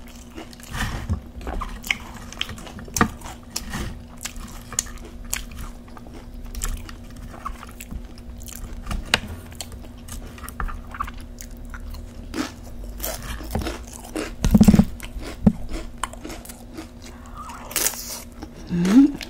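Close-miked crunching and chewing of tortilla chips (nachos), with crisp crackles throughout. There is a louder low thud about three quarters through and a brief rising tone near the end.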